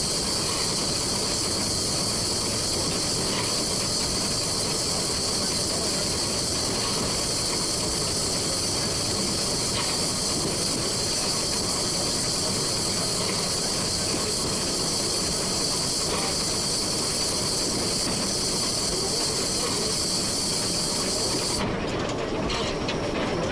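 Cab of a 1925 La Meuse-built steam locomotive on the move: a steady, loud steam hiss over the rumble of the running train. The hiss cuts off suddenly near the end.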